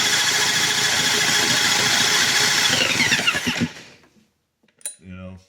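Power drill spinning over a Troy-Bilt 46cc chainsaw engine for a compression test. Its motor runs at a steady high whine, then winds down with falling pitch and stops a little over three seconds in. The engine has low compression.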